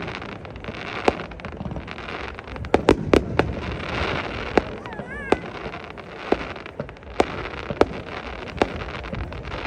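Fireworks display bursting overhead: a run of sharp bangs at irregular intervals, sometimes several close together, over steady background noise.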